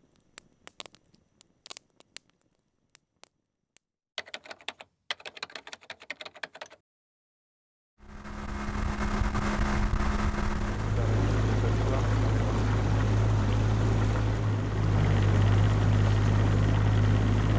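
Quiet crackling of a campfire with scattered small pops, growing denser about four seconds in, then a second of silence. After that a motorboat engine runs steadily with a low hum and rushing water noise, its pitch settling a few seconds after it comes in.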